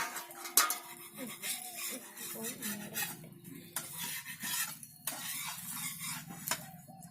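Metal kitchen utensils clinking and scraping against pots and pans in irregular strokes, with a sharp knock at the start and another about half a second in.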